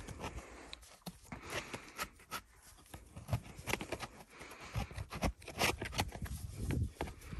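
Metal scraper blade cutting and scraping into a lump of damp, freshly dug chalk: a run of uneven scraping strokes as the chalk crumbles away, the strokes growing denser and louder in the second half.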